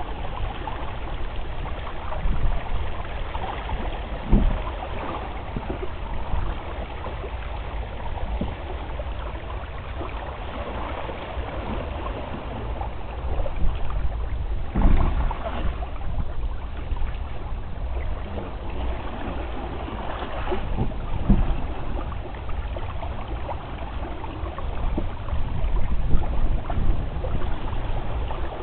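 Water rushing and splashing past the hull of a sailing proa under way, a steady wash that swells unevenly, with wind rumbling on the microphone.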